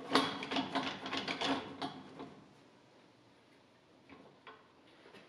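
Rapid run of metal clicks and clanks for about two seconds as the adjustable steel cutting-head attachment of a homemade duplicating lathe is worked by hand, then two faint clicks near the end.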